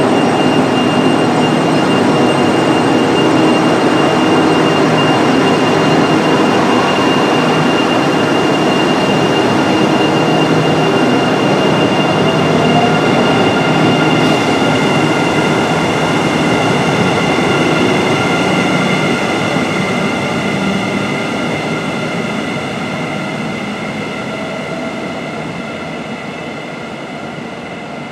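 KTM electric commuter train pulling out along the platform: its electric traction drive whines with steady high tones over the rumble of wheels on rail, then fades over the last several seconds as it draws away.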